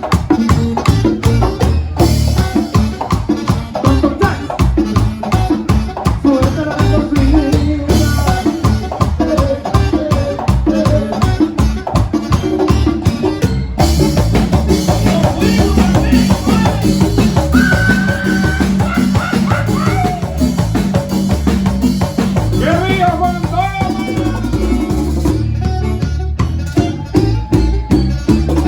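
Band music with a steady, danceable beat: drums and percussion with a rattle-like shaker, under bass and melodic instrument lines.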